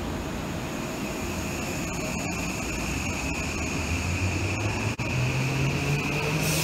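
Electric train moving past slowly with a steady high whine and running noise. About four seconds in, low traction-motor tones begin to rise in pitch as the train picks up speed.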